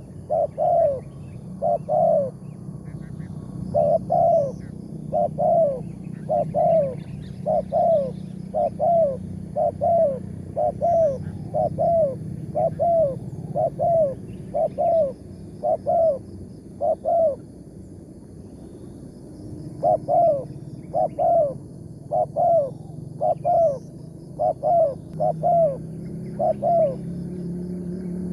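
Spotted dove (tekukur) cooing over and over: a long series of short arched coos about two a second, broken by a pause of about two seconds, over a steady low hum.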